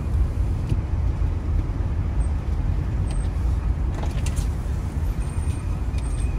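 Motorhome driving on the road: a steady low rumble of engine and tyre noise heard from inside the cab.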